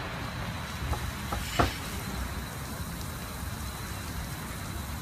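Leisuwash 360 touchless car wash machine's high-pressure water jets spraying a car, a steady hiss of water with a thin, steady high whine. Three short knocks come between about one and two seconds in, the last the loudest.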